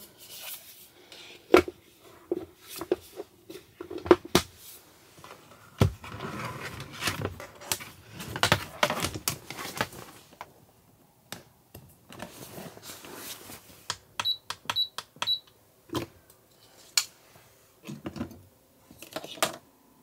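Handling sounds while a humidifier is set up and its cable plugged into a car's power socket: scattered clicks, knocks and rustling. About two thirds of the way through come three short high beeps, half a second apart.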